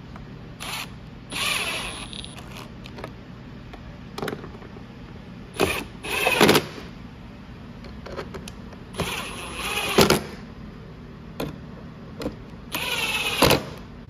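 Cordless impact driver run in several short bursts, driving in the bolts that hold a snowmobile's screen panel.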